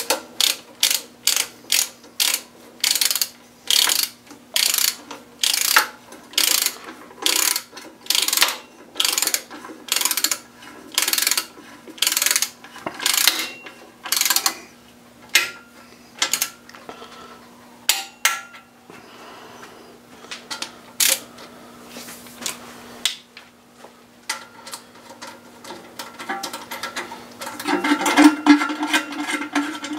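Hand ratchet running bolts down on an engine's oil pump and sump baffle: a short buzzing ratchet stroke about twice a second, thinning out to a few scattered strokes about halfway through. Near the end comes a jumble of metal clinks, over a faint steady hum.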